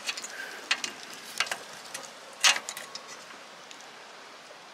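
Multi-tool pliers working a small spring clip off a metal awning-arm pivot pin: several short, sharp metallic clicks and scrapes, the loudest about two and a half seconds in.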